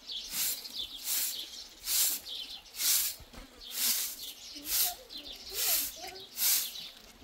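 A long-stalked straw broom sweeping hard ground, in steady, even strokes about one every second, each a brief scratchy swish. Faint bird chirps sound in the background.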